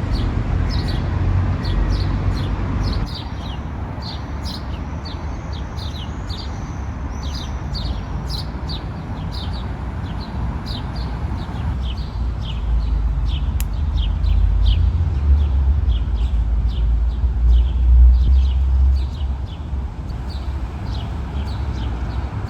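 Small birds chirping repeatedly, short sharp notes a few times a second, over a steady low rumble that swells around the middle.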